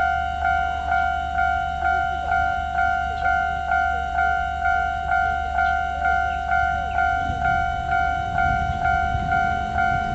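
Railway level-crossing warning bell ringing, an even electronic ding repeating about twice a second. A low rumble swells underneath in the last few seconds.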